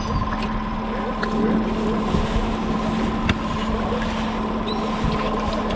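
Honda 150 outboard motor idling steadily with an even hum, with wind on the microphone.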